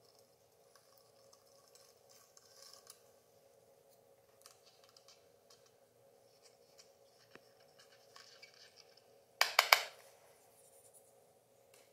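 A thin stick faintly scratching and scraping through the sand inside a glass sand-tapestry frame. About three-quarters of the way through comes a quick run of sharp clicks or taps, the loudest sound.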